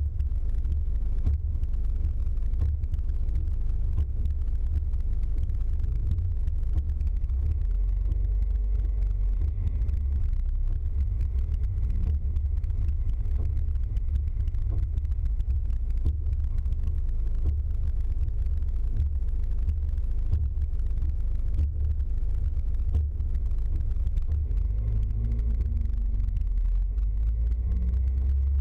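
Cabin noise inside a vehicle driving on a wet road: a steady low rumble of engine and road noise.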